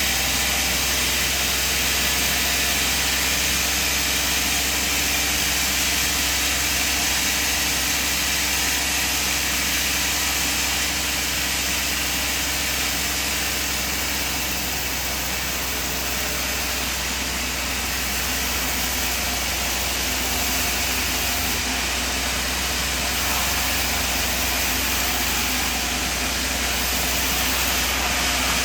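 Sawmill machinery running steadily: a constant low hum under a loud hiss, with no clear cuts, starts or stops.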